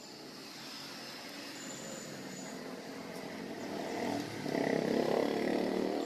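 A motor vehicle's engine approaching, growing steadily louder, with its pitched hum loudest in the last second and a half.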